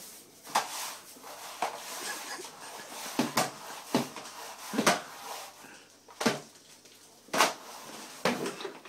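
Irregular knocks and clacks, about one a second, from a switched-off vacuum cleaner being shoved back and forth across the floor and bumping into things; no motor is running.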